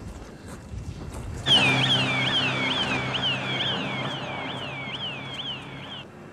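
Electronic alarm siren sounding a rapid series of falling whoops, about two a second, over a steady low hum. It starts suddenly about a second and a half in after low outdoor rumble, and cuts off shortly before the end.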